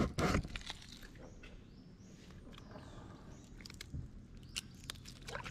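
Knocks and water sloshing as a freshly sawn black mangrove log is grabbed and tugged in the river, loudest in the first half second, then a few fainter knocks. Birds chirp faintly in the background.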